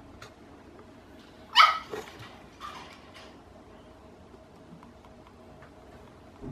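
Papillon puppy barking: one sharp bark about one and a half seconds in, then a softer one about a second later.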